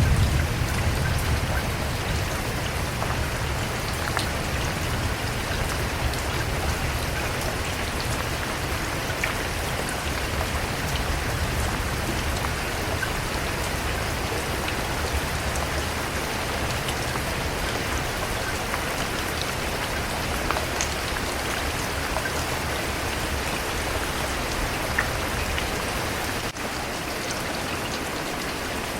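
Steady rain falling on a surface, an even hiss with scattered individual drop hits. A low rumble fades out over the first few seconds, and about 26 seconds in there is a momentary dip, after which the rain continues slightly quieter.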